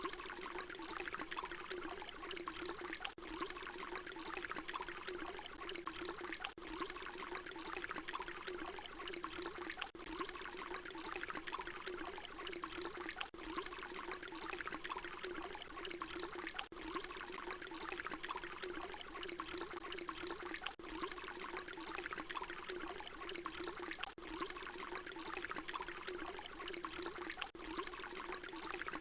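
Water pouring steadily in a continuous splashing stream. It is a short recording looped, with a brief dip at each seam about every three and a half seconds.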